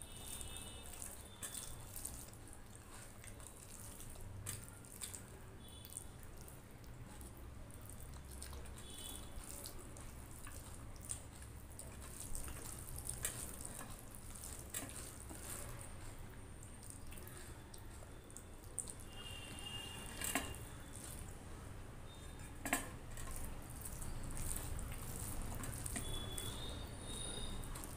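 A hand mixing rice and curry on a steel plate: wet, sticky squishing and clicking of fingers in the rice, with a few sharper taps against the metal plate.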